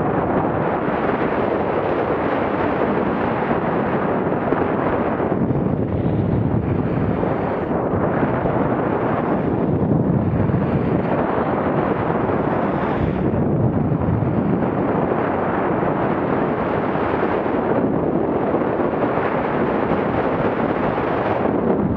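Loud rushing wind buffeting a Garmin VIRB action camera's microphone as the skier runs downhill at about 30 to 50 km/h, mixed with the hiss of skis on groomed snow, swelling and easing with the turns.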